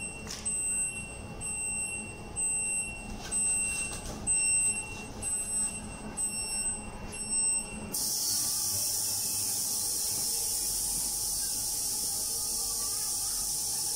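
Ultrasonic cleaner's alarm beeping, a high electronic beep repeating about once a second, signalling that the cleaning cycle is complete. About eight seconds in the beeping cuts off abruptly and a steady high hiss takes over.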